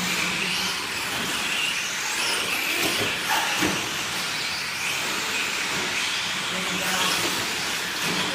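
Electric motors of 4x4 short course RC trucks (Tekno SCT410 class) whining, the pitch rising and falling as they accelerate and slow, over a steady hiss of tyres on dirt. A couple of knocks about three seconds in.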